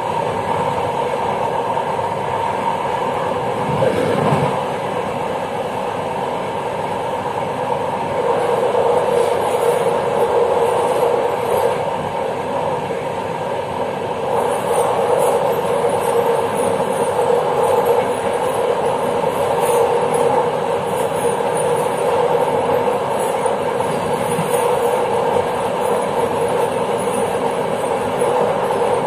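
Passenger train running along the rails, heard from the rear of the last carriage: a steady rolling rumble of the wheels on the track, with a brief knock about four seconds in and light rattling higher up from about halfway through.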